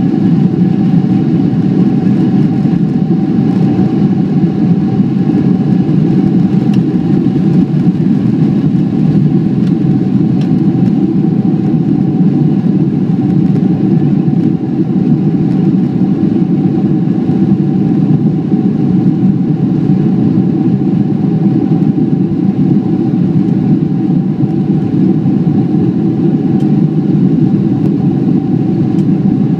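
Cabin noise of a Boeing 767-300 at takeoff thrust, heard from a seat over the wing: a loud, steady rumble of engines and airflow with a faint steady tone above it, carrying on through lift-off and the initial climb.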